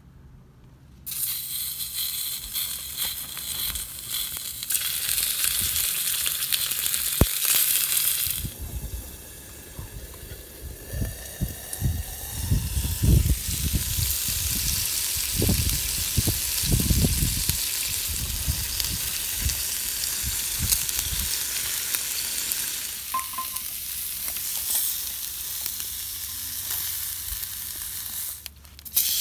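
Sliced meat sizzling and frying in a hot iron skillet, a loud, even hiss. Irregular dull low thumps run through the middle stretch.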